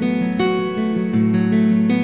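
Background music of acoustic guitar chords, with a new chord strummed about half a second in and another near the end.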